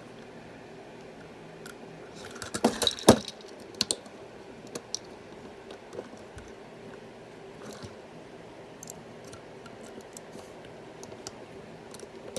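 Plastic LEGO pieces clicking and rattling as they are handled and pushed together, with a cluster of sharp clicks about two to three seconds in and scattered light clicks after.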